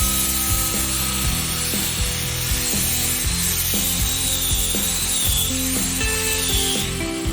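Cordless angle grinder grinding: a harsh, rasping noise with a whine that wavers in pitch, over background music. The grinding cuts off near the end.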